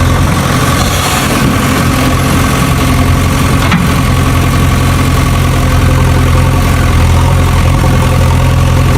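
An engine idling steadily, a deep even drone with no change in speed.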